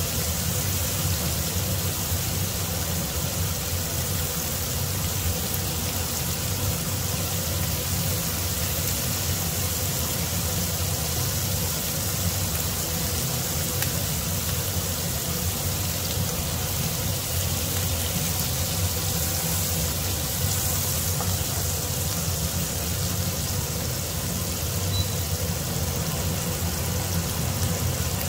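Marinated beef slices sizzling steadily in bubbling butter in a nonstick frying pan, an even frying hiss with a steady low hum underneath.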